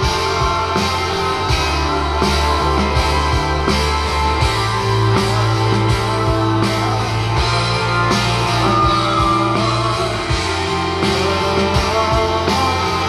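Live rock band playing loud, with a steady beat and a bass line that changes note every few seconds.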